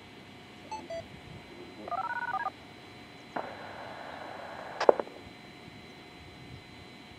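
Radio control tones for the siren system: two short beeps, then a quick run of dial-tone-like tones about two seconds in, followed by a burst of static hiss that cuts off with a sharp click a little before five seconds.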